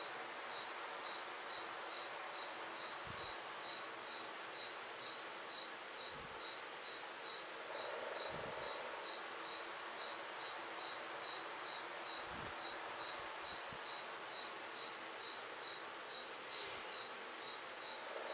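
Cricket chirping: a steady high trill with a fainter chirp repeating evenly about three times a second. A few soft low thumps come through now and then.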